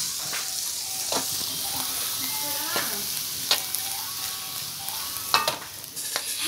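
Metal spatula scraping and clinking against an aluminium wok as fried crickets are stirred, with a steady hiss of sizzling underneath. The clinks come at irregular moments; the sharpest fall a little past the middle and again after about five seconds.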